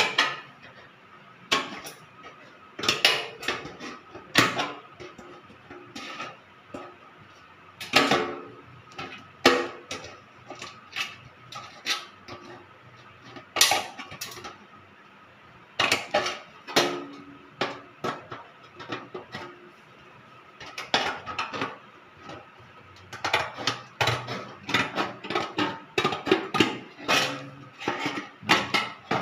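Hand tin snips cutting thin painted sheet-metal flashing: short crunching snips and sharp metallic clicks in irregular bursts, with pauses between cuts.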